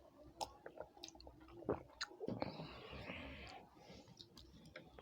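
Close-up chewing with wet mouth clicks and smacks while eating. A short hissing noise, like a slurp or sharp breath, comes about two and a half seconds in.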